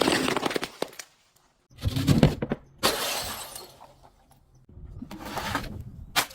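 Glass bottles breaking and shattering in a series of separate crashes, each followed by clattering, crunching shards. There is a short silent gap about a second in, and a sharp crack near the end.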